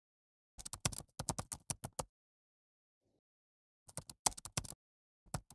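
Typing on a keyboard: three quick runs of key clicks, the first about a second and a half long, with dead silence between the runs.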